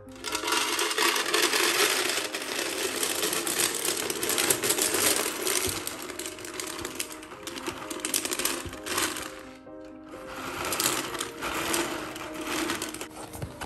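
Dry fusilli pasta poured into a clear plastic canister, a dense rattle of many small hard pieces hitting the plastic and each other. It breaks off briefly about ten seconds in, then resumes.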